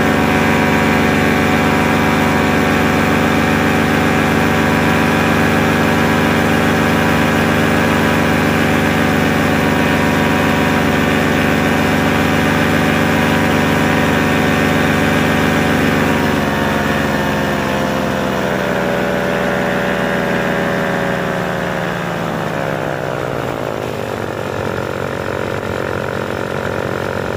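Paramotor engine running steadily, then from about two-thirds of the way through its pitch slides gradually lower over several seconds as the revs fall.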